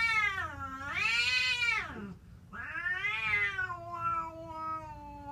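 Cats yowling in a fight: long, drawn-out wavering howls. One ends about two seconds in, and another starts half a second later and sags lower and steadier as it goes on.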